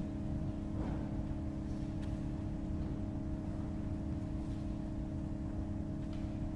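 Cavaillé-Coll pipe organ sustaining a quiet chord of a few steady pipe tones over a low rumble, after a loud passage has died away. A few faint clicks from the stop knobs and key action sound now and then.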